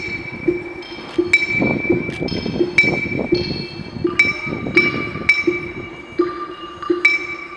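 Electronic music from the projection show's soundtrack: bright bell-like chimes ring out every second or so over a repeating low note pulsing about twice a second.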